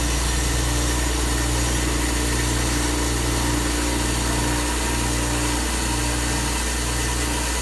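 Electric sander motor running steadily with an even hum, as the tapered edges of a wooden box drawer are sanded down to fit.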